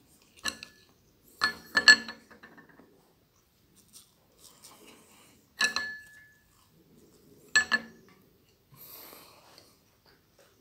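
Wooden chopsticks clinking against the dishes: about five sharp clinks, some with a short ring, with quieter chewing in between.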